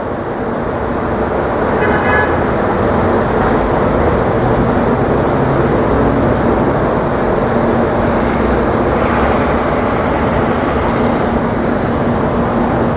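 Steady city road traffic with vehicles passing close by; the noise swells about two seconds in and holds, with an engine hum underneath. There is a short high-pitched tone about two seconds in.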